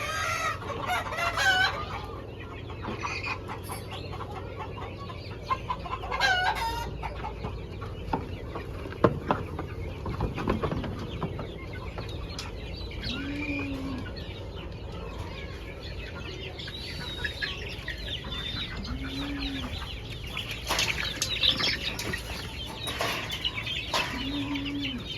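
Chickens clucking, with louder pitched calls near the start and again about six seconds in, and a short low tone that recurs three times in the second half.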